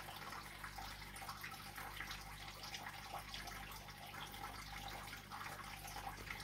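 Faint steady trickling and bubbling of aquarium water, full of small irregular ticks, over a low steady hum.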